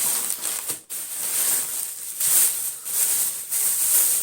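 Irregular rustling and crinkling of gift packaging as a wrapped gift is picked up and handled.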